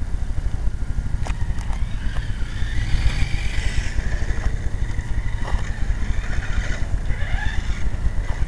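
Electric RC pan car (BoLink Sport chassis) whining in spells as it accelerates and slows across asphalt, with a short rising whine near the end, over a loud low rumble.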